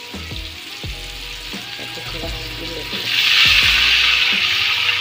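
Ground spice paste sizzling in hot oil in a wok as it is stirred with a spatula. About three seconds in, water is poured into the hot pan and the sizzle suddenly grows much louder.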